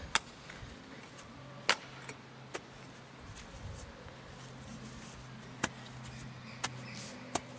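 Corner of a steel Strainrite fencing spade being chopped into turf to mark out a hole outline: about six short, sharp knocks, a second or so apart, over a faint steady low hum.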